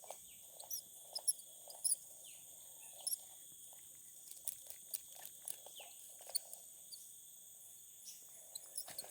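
Steady high-pitched insect chorus of several unbroken tones, with scattered small clicks and soft rustles close by.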